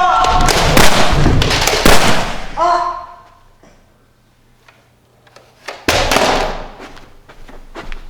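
A run of loud bangs and crashes that dies away about three seconds in, then after a lull one sudden loud bang that fades over about a second.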